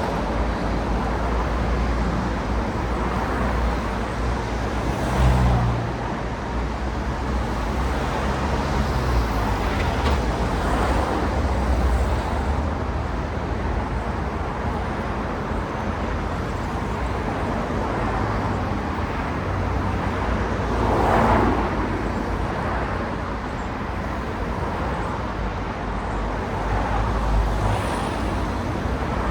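City road traffic: a steady rumble of car engines and tyres, with individual vehicles swelling past about five seconds in and again around twenty-one seconds.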